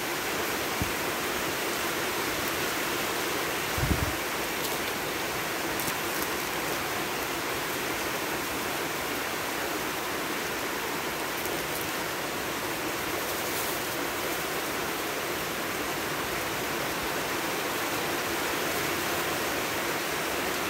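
Steady, even hiss of falling rain, with a single dull thump about four seconds in.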